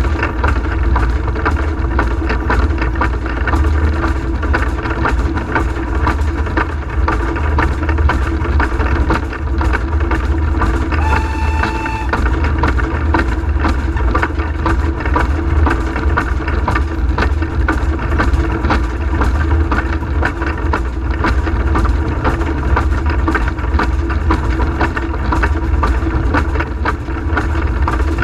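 Cab noise of a Peckett & Sons industrial steam locomotive working under steam: a loud, steady rumble with fast rattling from the engine and running gear. A brief whistle note sounds about eleven seconds in.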